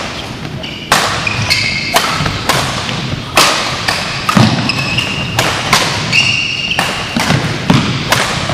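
Badminton doubles rally: a fast string of sharp racket strikes on the shuttlecock, about one to two a second, with short squeaks of court shoes on the floor between the hits.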